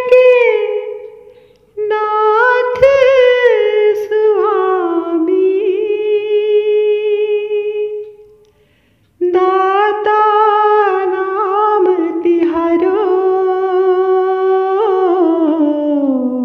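A woman singing a devotional bhajan unaccompanied. She draws out long wordless held notes with small ornamental turns, in three phrases broken by two short breaths, the last phrase sliding down in pitch at the end.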